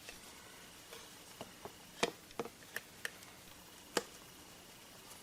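A handful of light, sharp clicks and taps from a used Smith & Wesson M&P40 pistol and its magazine being handled, the strongest about two seconds in and another near four seconds.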